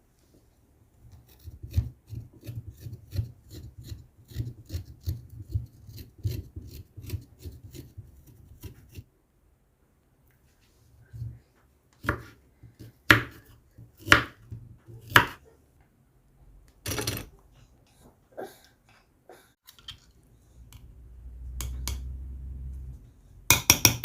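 Ginger being worked with a knife on a cutting board: a steady run of short cutting or scraping strokes, about two to three a second. After a pause come several louder sharp knocks, then a low hum for a few seconds and a quick flurry of clicks near the end.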